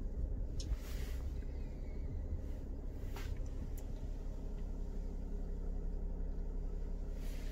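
Mercedes-Benz Sprinter 519 CDI diesel engine idling steadily, heard as a low rumble from inside the cabin, with a couple of faint clicks.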